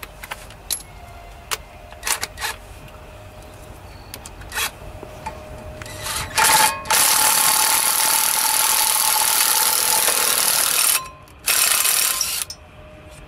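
Light clicks and knocks of hand work, then a loud steady hiss for about four seconds that stops, starts again for about a second, and cuts off.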